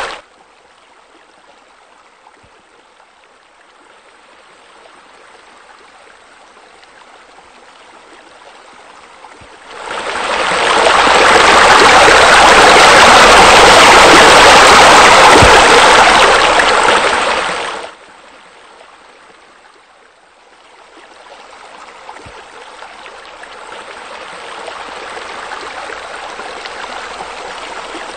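Running, splashing water of pool water features: a spa spilling over into the pool and a raised waterfall. It is faint at first, swells loud about ten seconds in, cuts back suddenly about eight seconds later, then slowly grows again toward the end.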